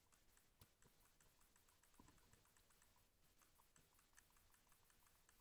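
Near silence with faint, irregular small clicks: an Xbox Series controller's buttons and bumpers being pressed in the hand.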